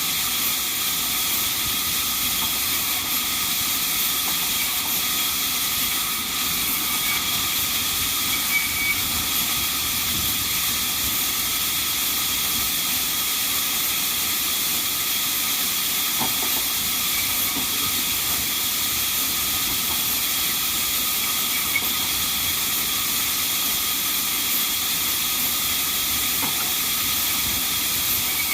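Sawmill band saw running, a steady high hiss with faint steady tones in it that holds without change.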